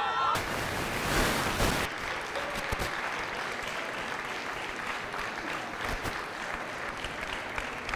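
Audience applauding, with many camera shutter clicks mixed in.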